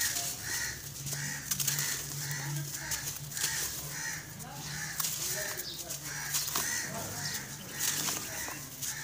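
Hands crushing and crumbling dry, gritty chalky chunks and sifting loose powder through the fingers: a soft sandy hiss broken by many small crunches and crackles. Under it, a bird calls over and over in the background, about two to three calls a second.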